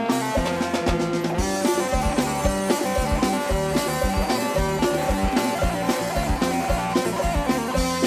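Band music with a steady drum beat, electric guitar and keyboard lines: the instrumental break between sung verses of an Isan-style Thai pop song played by a mobile street band.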